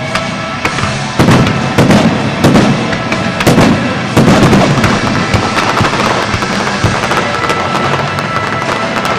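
Fireworks display: a run of loud shell bursts about one to four and a half seconds in, then many smaller pops and crackles from glittering stars, with music playing underneath.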